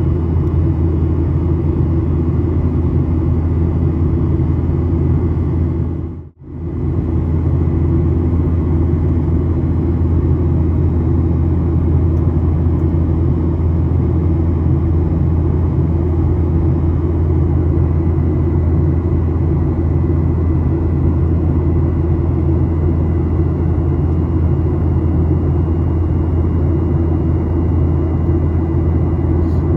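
Steady low rumble of a Boeing 737's engines and airflow heard inside the passenger cabin, with faint steady tones above it. It drops out briefly about six seconds in, then returns at the same level.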